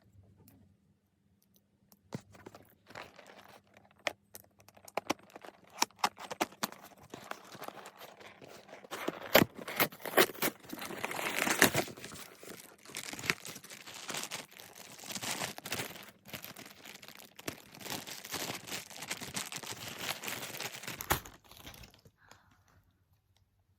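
Packaging being torn open and crinkled by hand: irregular rustling and tearing with sharp crackles, busiest about halfway through, dying away shortly before the end.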